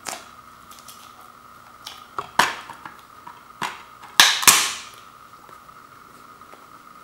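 Plastic DVD keep case being handled and pried open: a series of sharp plastic clicks and snaps, the loudest a close pair about four seconds in as the latch lets go and the case swings open.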